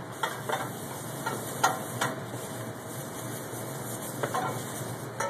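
Knife cutting meat away from a piece of skin: scattered short knocks and scrapes of the blade, the sharpest about a second and a half in, over a steady low kitchen hum.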